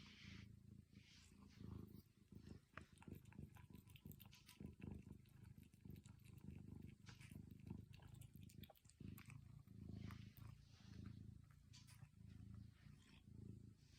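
Domestic cat purring close up: a low rumble that swells and fades with each breath, with scattered soft clicks.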